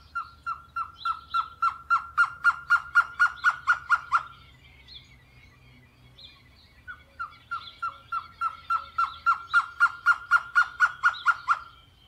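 Surucua trogon singing: two long series of short, evenly spaced hooting notes, about four a second, each series swelling louder as it goes. The second series starts about seven seconds in.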